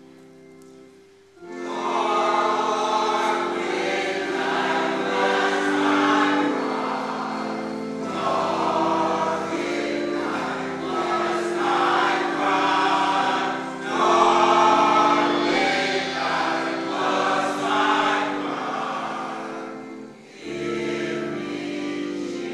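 A large church choir singing over held instrumental chords. The chords sound alone at first, the full choir comes in loudly about a second and a half in, and there is a brief dip near the end before the singing picks up again.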